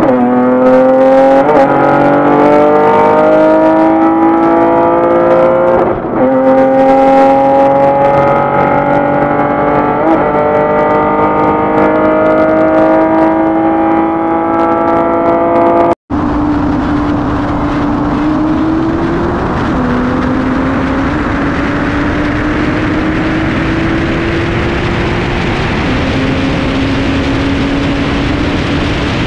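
Acura TL's V6 at full throttle in a high-speed pull, engine pitch climbing through the gears and dropping at upshifts, most plainly about six seconds in. About sixteen seconds in the sound cuts to a steadier engine drone at speed with heavy rushing wind noise, the pitch easing up and down slightly.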